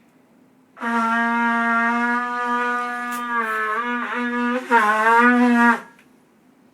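Bugle blown in one long note of about five seconds, steady at first, then wavering and dipping in pitch, and louder for its last second before it stops.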